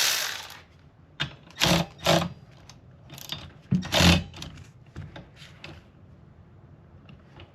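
Ratchet wrench clicking in a series of short strokes as the wiper arm's retaining nut is tightened. The strokes stop after about six seconds.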